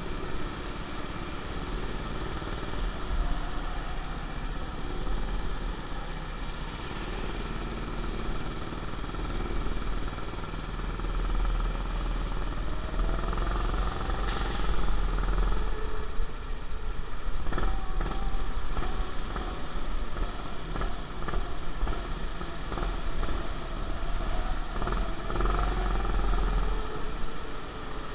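Rental go-kart's motor running at speed, heard from on board, its pitch rising and falling as the kart works through the corners, with a few sharp knocks partway through.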